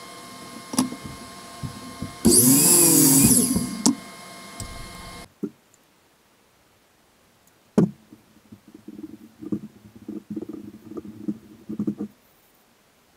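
A miter saw cutting through a maple board: about two seconds of loud blade-in-wood noise, its pitch wavering under the load, over a steady shop hum. Then, much quieter, a single knock and a cloth wiping oil over the wooden board in short irregular strokes.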